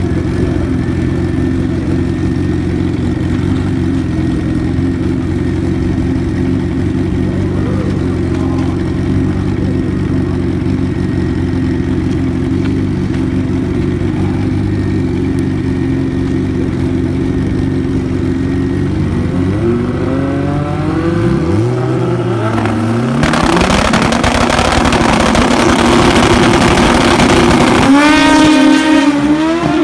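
Two Pro Street drag motorcycle engines, one a Suzuki Hayabusa, idling together at the starting line. After about twenty seconds they start revving and get much louder. Near the end the pitch climbs quickly as the bikes launch.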